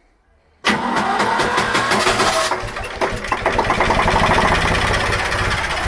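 A Ruston diesel engine is cranked by its electric starter with the decompressors open, starting suddenly about half a second in with a hiss over the first couple of seconds. It then catches and runs with a steady, even beat.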